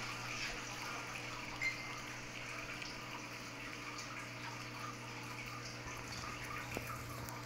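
Persian cat biting and chewing grass blades: small irregular crunching ticks, with one sharper click about two seconds in, over a steady low hum.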